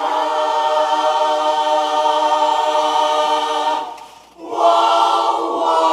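Women's barbershop chorus singing a cappella: a chord held for about four seconds, a short break, then another sustained chord.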